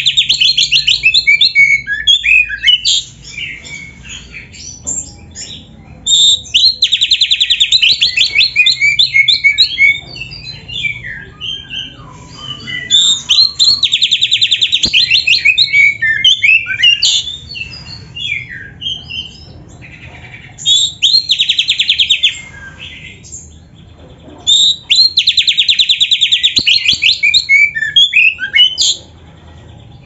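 Oriental magpie-robin singing loudly in repeated bouts, one about every six seconds. Each bout opens with a fast, buzzy rattling trill lasting a second or two, then runs into varied whistled and chattering notes. The rapid rolls are canary song that the magpie-robin has learned and mimics.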